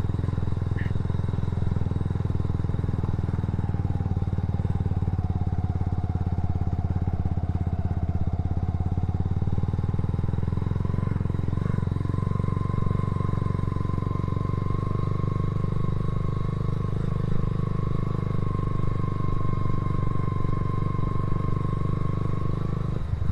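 Motorcycle engine running steadily under way, with a thin whine above the engine note that dips slightly, then steps up and holds higher about halfway through.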